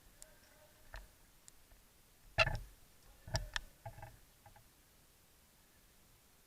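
A few scattered sharp clicks and snaps over a quiet background, the loudest about two and a half seconds in and a close pair about a second later.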